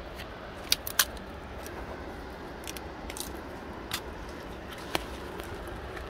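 A hiker's footsteps on rough ground: scattered sharp clicks and snaps of twigs and stones underfoot, the loudest pair about a second in, over a steady rushing background noise.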